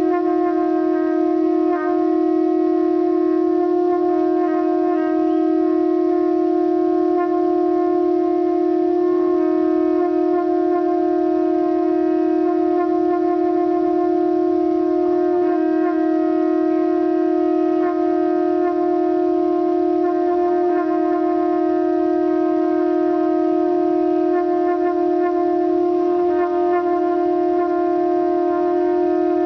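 A blown horn sounding one long, unbroken note at a steady pitch with no breaks for breath.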